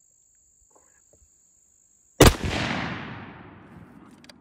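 A single rifle shot about two seconds in, fired at a feral hog, followed by a long echo that dies away over about two seconds.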